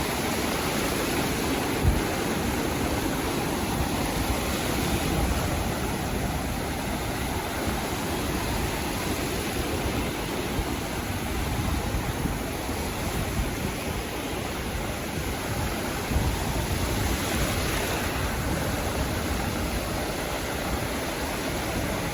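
Sea waves washing onto the shore: a steady, continuous surf wash with no single break standing out.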